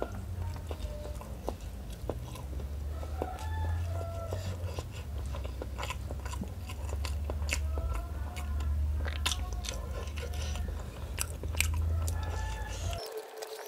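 Close-up eating sounds of a person chewing rice and smoked tuna in curry sauce: wet chewing with many sharp lip smacks and mouth clicks. A low steady hum underneath cuts off suddenly near the end.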